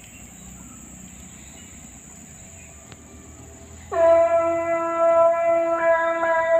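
Quiet outdoor ambience with a steady high-pitched whine. About four seconds in, a loud, held musical note with a rich, steady pitch starts abruptly: background music coming in.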